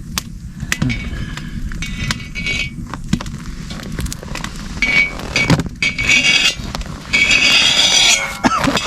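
Metal cooking utensils clinking and scraping against a big pan over a wood fire, with sharp knocks and stretches of hissy scraping noise.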